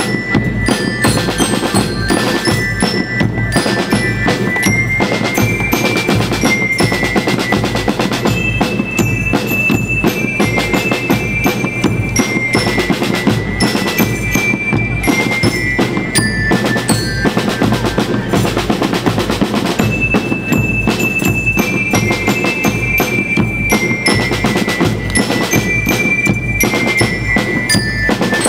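A school rhythm band playing: steady snare and bass drum beats with a rolling pattern, under a bright melody of single notes on metal bell lyres. The music stops right at the end.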